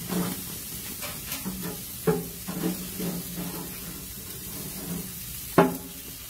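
Steak and sausages sizzling on a grill's griddle plate in a steady hiss, with a few sharp knocks; the loudest comes near the end.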